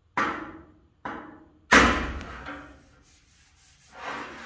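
Three sharp metallic knocks, the third the loudest, each ringing briefly: a bullseye pick bumping up low spots in the sheet-steel fender of a 1936 Chevy truck. A softer rising scrape of the tool on the metal follows near the end.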